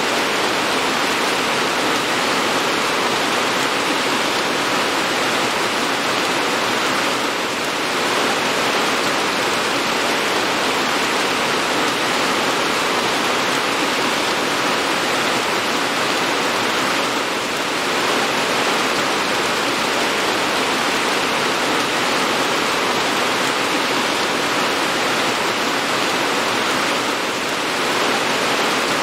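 Steady heavy rain: an even, dense hiss with no separate drops standing out. It dips slightly in level about every ten seconds.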